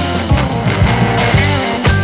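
Background rock music with guitar and a steady beat of about two strikes a second.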